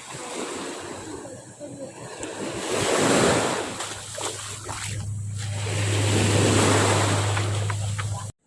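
Sea waves breaking on a shore: the wash of surf swells about three seconds in and again in a longer surge from about five seconds, then cuts off abruptly near the end.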